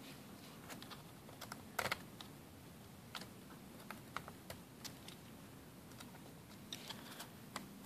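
Faint, scattered small clicks and taps of a small screwdriver on the plastic locking tabs of a laptop's keyboard ribbon-cable connector as they are pushed shut, the clearest about two seconds in.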